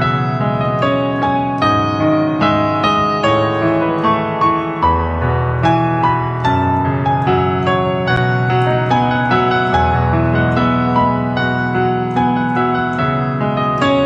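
Piano playing an instrumental passage with both hands: a melody of struck notes over sustained low chords, the bass changing about every few seconds.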